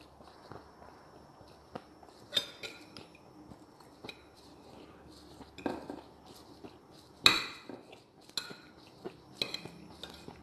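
Metal fork and spoon clinking and scraping against a ceramic plate while cutting and scooping food. There is a handful of sharp, ringing clinks at uneven intervals, the loudest about seven seconds in.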